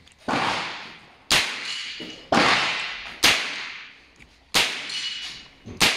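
AR-15-style rifle chambered in .22 firing six shots, roughly one a second, each a sharp crack with a short echoing tail.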